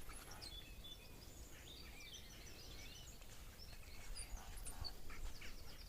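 Faint birdsong: several small birds chirping and calling over a low, steady background hum, including a quick run of repeated high notes about two seconds in.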